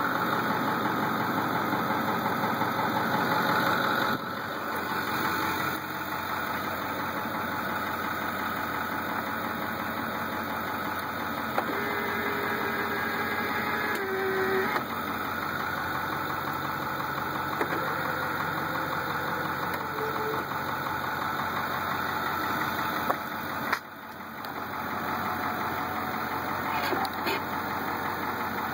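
Ford F-250 Power Stroke V8 turbo-diesel idling steadily. An electric power-mirror motor whines for about two and a half seconds near the middle, and again briefly a few seconds later, as the mirror is adjusted.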